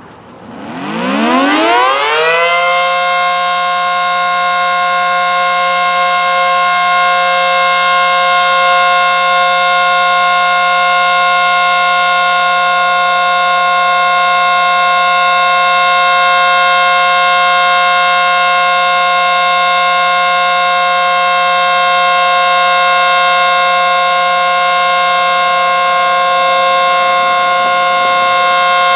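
ACA Screamer S-10 outdoor warning siren, reverse-wired, winding up over the first couple of seconds with a rising pitch, then holding a steady, very loud multi-note tone with a low motor hum beneath it.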